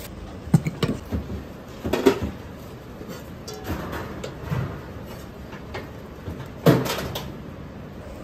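Commercial kitchen clatter: a few sharp metal clanks and knocks of ladles against woks and stockpots, the loudest about two seconds in and near the end, over light background music.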